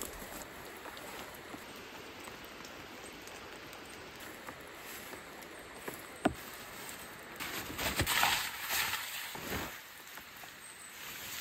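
Steady rain patter, with a single sharp tap about six seconds in, then a loud rustling of a tarp being handled for roughly two seconds near the end.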